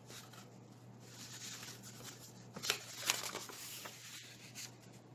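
Pages of a Goodnight Moon picture book being turned by hand: soft paper rustling with a few short flicks about halfway through.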